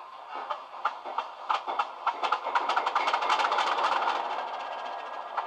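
Class 20 diesel cold start played by a model locomotive's DCC sound decoder through its small speaker: the engine turns over with separate knocks that quicken over about two seconds and run together as it catches, then settles into a steady fast beat.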